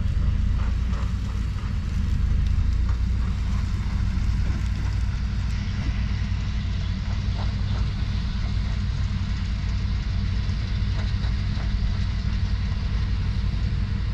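Isuzu Deca 320 sugarcane truck's diesel engine running at low speed as the loaded truck backs slowly toward its trailer for hitching. It is a steady deep rumble, and a steady hiss comes in about five seconds in.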